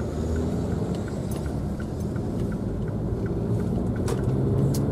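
Car driving, heard from inside the cabin with the rear door open: a steady engine and road rumble with wind noise. The engine note rises slowly as the car picks up speed.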